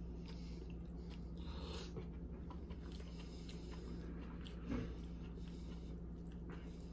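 Soft chewing and mouth sounds of someone eating baked spaghetti squash, with a fork scraping and picking at the squash in its shell, over a steady low room hum. One slightly louder soft sound comes about two-thirds of the way through.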